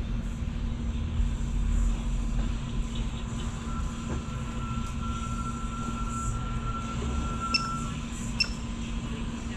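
Steady indoor room noise: a low rumble with a constant hum, a faint thin tone through the middle, and two small clicks near the end.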